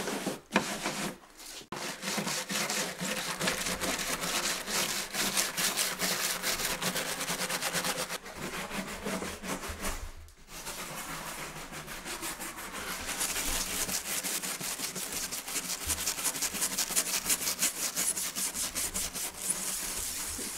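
Stiff couch-grass brush scrubbing sawdust back and forth over a leaded stained-glass panel, a rough rapid scratching rub in quick repeated strokes that breaks off briefly a few times. The sawdust is rubbed over the panel to clean the glass and the leads.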